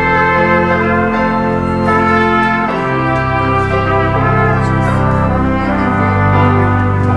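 Instrumental music from a church ensemble: brass (trumpet and trombone) with organ, playing held chords that change every second or so.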